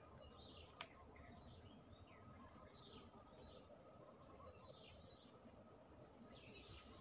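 Faint, quiet outdoor ambience with small birds chirping now and then in short falling notes, over a low rumble. One sharp click about a second in.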